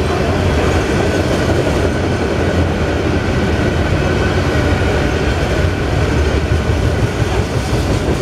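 Covered hopper cars of a freight train rolling past close by: a loud, steady rumble of steel wheels on the rails, with a faint steady high tone over it.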